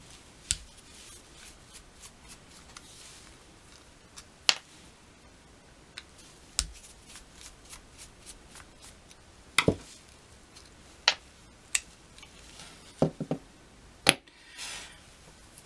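Scattered sharp clicks and light taps of a screwdriver and small metal parts of a chainsaw's Tillotson carburetor being handled, as the cover screws are undone and the diaphragm cover lifted off the body. Faint handling noise runs between the clicks, and a quick run of taps comes near the end.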